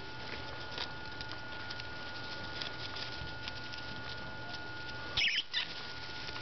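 Lemmings making faint small ticking and scratching noises in wood-shaving bedding as they eat cabbage, then a loud, shrill lemming squeak in two quick parts about five seconds in, the kind of squeal they give when squabbling.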